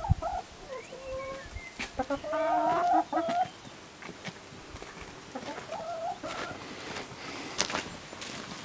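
Domestic hens clucking, with a longer drawn-out call about two seconds in and another about halfway through. A few sharp clicks or knocks near the end.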